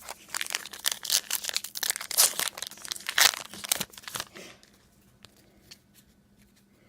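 A foil trading-card pack wrapper being torn open and crinkled in the hands: a dense run of crackles and tearing that stops about four and a half seconds in.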